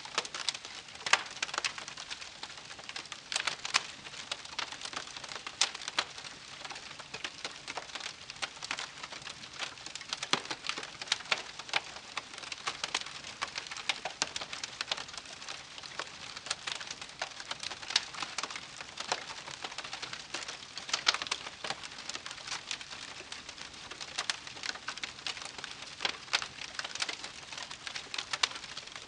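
Wood fire crackling: a steady, irregular stream of small pops and clicks with a few louder snaps.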